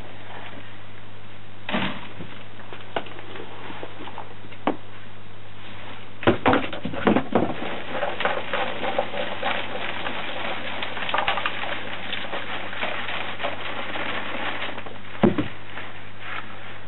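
Garden soil being sifted by hand through a plastic mesh crate: a scratchy rustle of earth rubbed and shaken through the mesh, with scattered knocks of the plastic crate. It is busiest from about six seconds in, with one sharper knock near the end.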